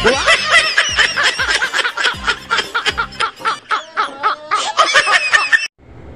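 Rapid, repeated laughter, about four to five bursts a second, over the tail of background music with a beat. It cuts off suddenly about five and a half seconds in, leaving a faint hiss.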